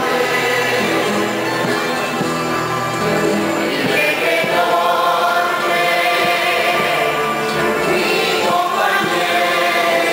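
Canarian folk parranda: men and women singing together in chorus, accompanied by strummed guitars, other plucked string instruments and a double bass.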